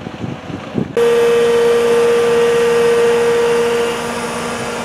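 Fire brigade aerial platform's hydraulic drive running: a loud, steady machine hum with a high whine that cuts in suddenly about a second in and eases slightly near the end.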